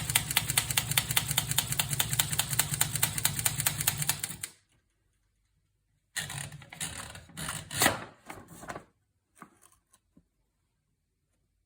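Olivetti Lettera 32 portable typewriter being typed on quickly and evenly, about seven keystrokes a second, until the typing stops about four and a half seconds in. After a short pause, nearly three seconds of irregular mechanical clattering from the machine follow, then a few faint clicks.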